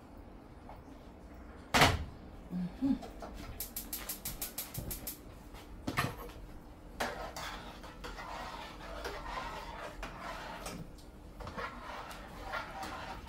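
Kitchen clatter of a cooking pot, pot lid and utensils on a gas stove and counter: a sharp knock about two seconds in, a quick run of rapid ticks around four seconds, then further knocks and scraping, rattling handling.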